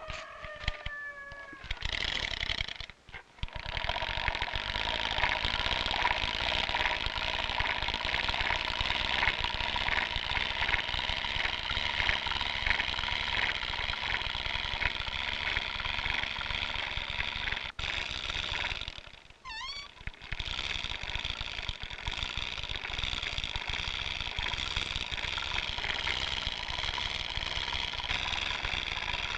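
Continuous high-pitched squeal of a hand-turned wooden rope-twisting device as fibre is twisted into rope, wavering a little in pitch as it turns. It breaks off briefly about three seconds in and again just before the twenty-second mark.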